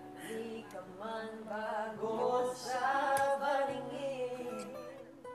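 A voice singing a slow melody with a long held note about three seconds in, accompanied by an acoustic guitar.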